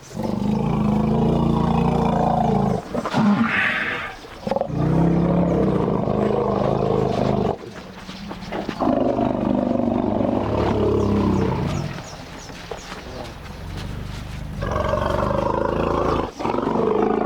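African elephants rumbling in greeting: a series of long, deep calls, each lasting a few seconds and overlapping one another, with a short higher-pitched call about three seconds in. It is a welcoming sound between bonded elephants meeting again.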